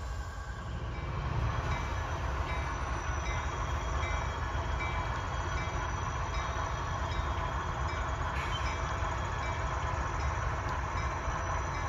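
HO-scale model Metrolink diesel locomotive running with its commuter train, a steady low diesel rumble with faint repeating high ticks.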